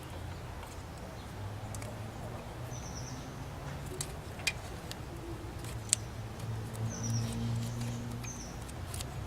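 A few sharp metallic clicks and taps from bolts and brackets being handled and threaded in by hand, the sharpest about six seconds in. Short high chirps of a small bird come several times over a low steady hum.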